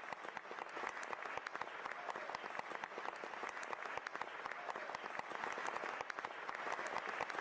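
Audience applauding: many hands clapping in a dense, even stream.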